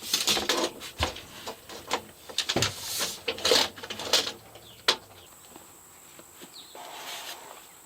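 Pieces of vinyl sheet flooring being handled and worked: irregular scraping and rustling with a few sharp knocks, dying down to quieter handling after about five seconds.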